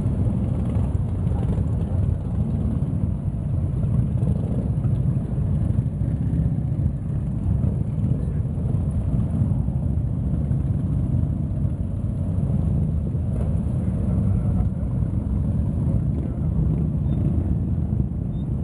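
Many motorcycle engines running together as a long procession of bikes rides slowly past over cobblestones, a steady low drone with no single bike standing out.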